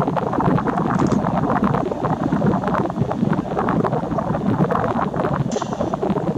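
Gusty wind buffeting the microphone, a loud, unsteady rumble with no steady tone, with two brief high-pitched sounds, about a second in and near the end.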